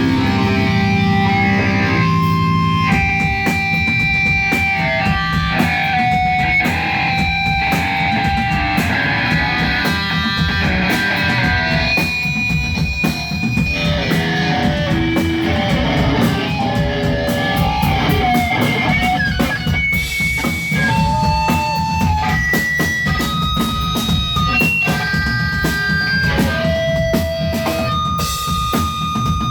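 Rock band playing live: electric guitar playing a melody of held notes over steady, dense drumming.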